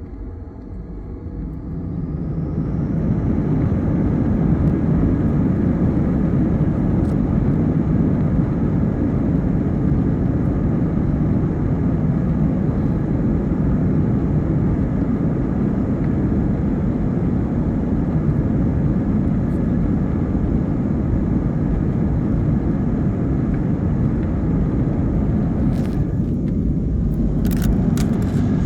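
Airliner engines spooling up over the first few seconds, then a steady loud rumble of the takeoff run heard from inside the passenger cabin. A few short clicks or rattles come near the end.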